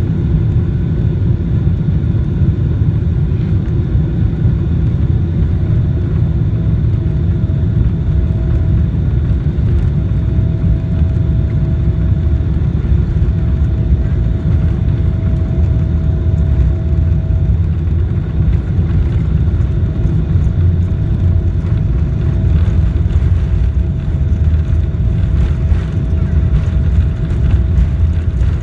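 Steady, loud low rumble of a Boeing 777-300ER's GE90 engines and airflow, heard from inside the rear cabin. A faint steady whine appears about six seconds in.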